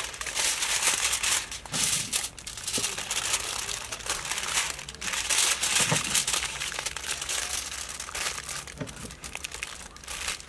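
Aluminium foil crinkling in irregular bursts as hands fold it over and press it into a tight flat parcel around food.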